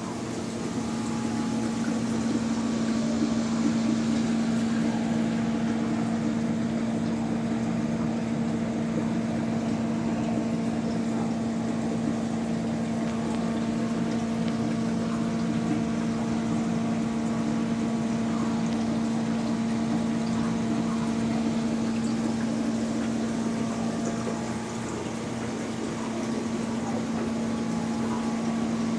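Large aquarium's water pump running, a steady low hum over an even hiss of moving water.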